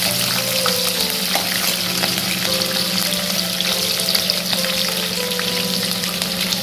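Oil and ghee sizzling steadily in a pan as whole spices and chopped green chillies fry in it.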